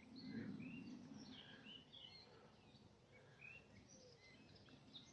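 Faint birdsong from small birds: scattered short chirps and warbling phrases throughout, over a faint low rumble in the first second and a half.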